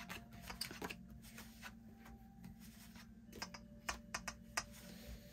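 Faint, scattered light clicks and taps of casino chips and playing cards being handled on a baccarat table, with a small cluster of clicks around the middle, over a low steady hum.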